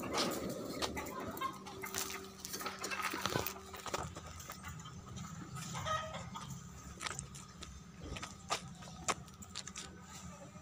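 Chickens clucking, with scattered short clicks and knocks throughout.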